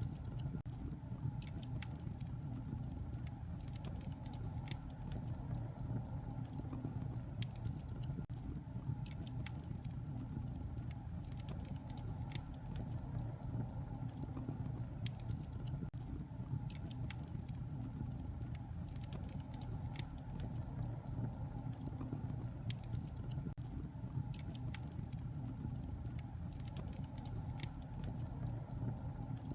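Wood fire burning in a fireplace: a steady low rumble of flames under frequent, irregular small crackles and pops.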